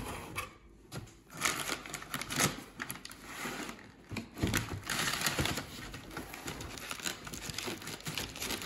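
Vacuum-sealed plastic wrap and brown packing paper crinkling in irregular bursts as they are handled with gloved hands.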